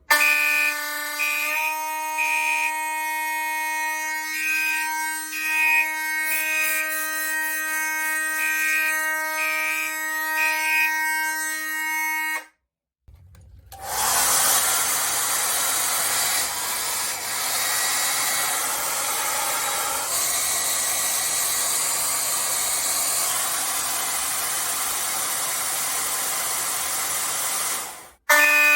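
Fire alarm horns sounding continuously and loudly. First a steady, pitched horn tone for about twelve seconds, then, after a short break, a harsher buzzing horn for about fourteen seconds, and the first horn tone returns right at the end.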